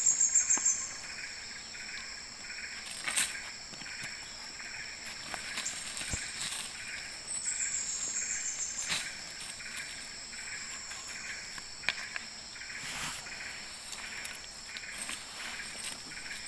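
Insects chirping in a steady pulsing rhythm, with a high trill that falls in pitch about every nine seconds. A few sharp knocks and rustles come from a fishing net being handled over river stones, the loudest about three seconds in.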